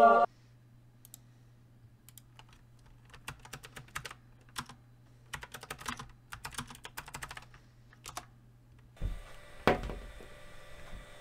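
Sparse, irregular clicks like keys being typed on a computer keyboard, after music cuts off just after the start. Near the end comes a steady room hum and one thump, as of goggles set down on a glass tabletop.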